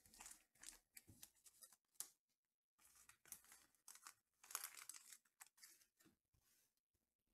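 Faint rustling and crinkling of trading cards and card-pack wrappers being handled, in a string of short scuffs that is loudest about four to five seconds in.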